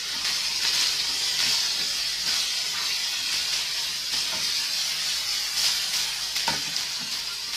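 Cubes of elephant foot yam stir-frying in hot oil in a frying pan: a steady sizzle, with a few short knocks of the spatula against the pan, the clearest about six and a half seconds in.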